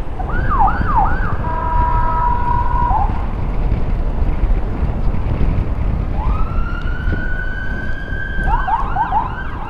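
Emergency-vehicle electronic siren sounded in short bursts rather than continuously: a few quick yelps and a held tone near the start, then a rising wail that levels off and breaks into rapid yelps near the end. It is kept short like this because the patient being carried has a heart and stroke history and must not be exposed to loud noise. Steady wind rumble on the microphone runs underneath.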